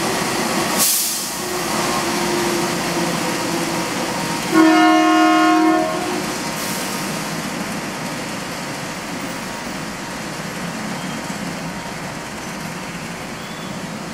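A KAI diesel-electric locomotive hauls a passenger train along the platform with a steady running rumble. It gives one horn blast of about a second and a half, some five seconds in.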